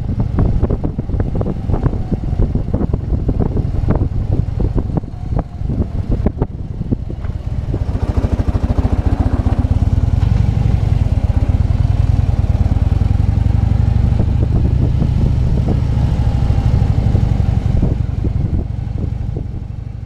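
Harley-Davidson motorcycle riding at low speed, its engine rumble mixed with heavy wind noise buffeting the camera microphone. The noise is choppy and gusty at first, then steadier and louder from about eight seconds in.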